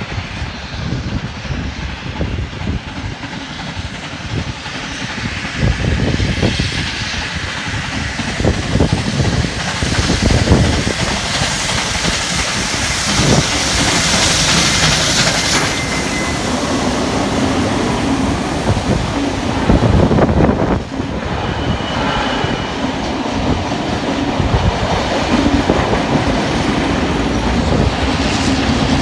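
Steam locomotive 5917, a D59-class 2-8-2, working a passenger train past, its exhaust and steam hiss loudest about halfway through as the engine goes by. Then the carriages roll past with the clickety-clack of wheels over rail joints.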